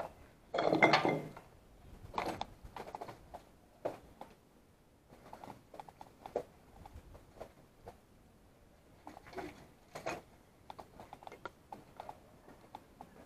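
Footsteps crunching and scuffing over rubble, broken brick and debris on a concrete floor, in irregular steps. There is one louder clatter about half a second in.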